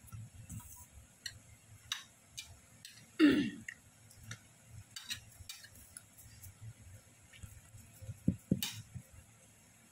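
Stainless steel mesh sieve knocking and rubbing against a stainless steel mixing bowl while dry ingredients are sifted: light, irregular ticks and taps. There is one louder scrape about three seconds in and two knocks near the end.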